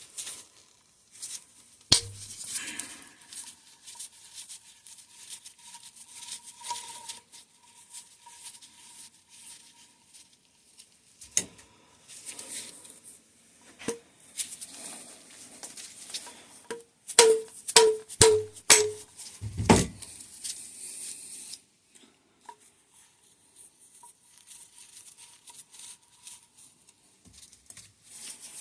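Metal hand tools clicking and clinking against the suspension fork during bench disassembly, with a quick run of about half a dozen sharp, ringing metallic taps about two-thirds of the way in.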